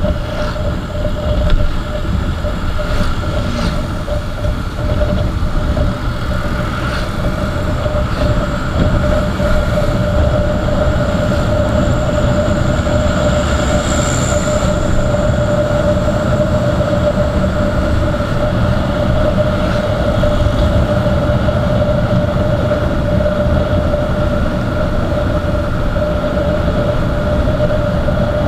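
Motorcycle riding at a steady cruise: a constant engine drone at one pitch over low wind and road rumble.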